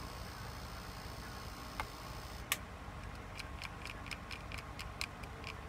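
A sharp click about two and a half seconds in, followed by light, even ticking about four times a second.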